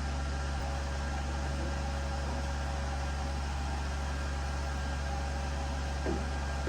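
Steady low machine hum with an even background hiss, and a faint knock about six seconds in.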